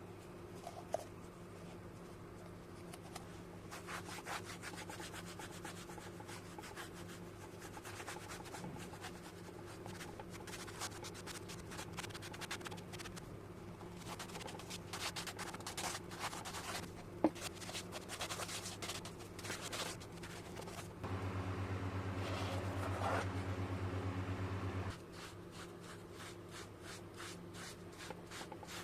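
Hand rubbing and scratching strokes on a surface in quick runs. About three-quarters of the way through, a low steady buzz comes in for about four seconds, then cuts off.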